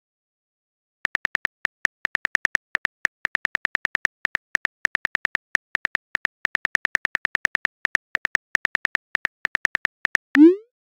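Simulated phone-keyboard typing: quick, uneven, short pitched clicks, one per typed character, starting about a second in. Near the end comes a short rising swoop, the message-sent sound.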